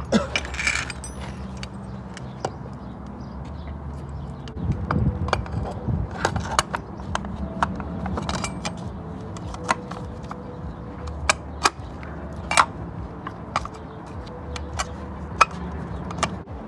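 Metal clinks and clicks as a clutch release (throwout) bearing and clutch fork are handled and fitted onto a manual transmission's input shaft, irregular and a few at a time, over a steady low hum.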